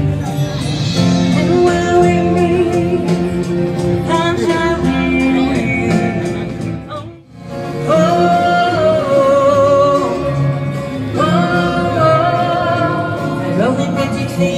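A woman singing live into a microphone over acoustic guitar accompaniment, her held notes wavering with vibrato. The music dips out briefly about halfway through, then carries on.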